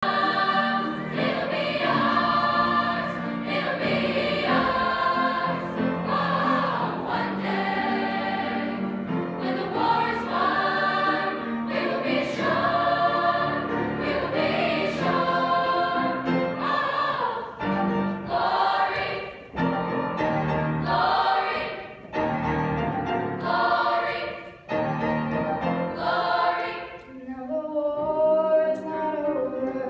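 Middle-school choir singing, phrase after phrase with short breaks between them. Near the end the full choir drops away and a single girl's voice takes a solo line.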